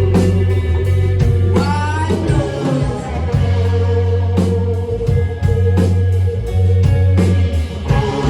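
Live band playing a rock song: a woman singing over guitar, a steady deep bass and regular drum hits, her voice swooping up and falling back about two seconds in.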